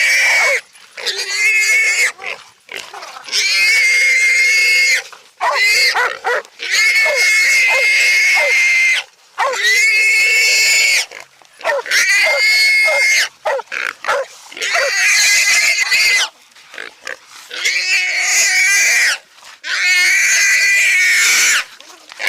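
Feral hog squealing loudly and repeatedly: about ten long, high squeals of one to two seconds each with short breaks between, as a hog gives when caught and held by catch dogs.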